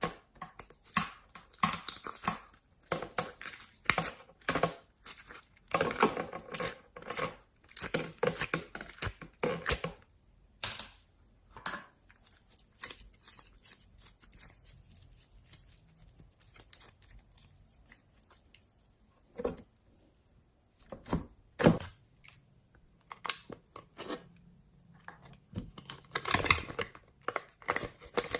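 Slime being squished and pulled apart by hand: a run of sticky crackles and small pops, dense for the first ten seconds or so, sparse in the middle, and busy again near the end.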